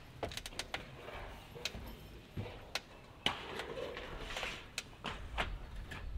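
Scattered light metallic knocks and clicks of a long steel standing seam roof panel being pushed up onto the roof, laid down and lined up at the eave.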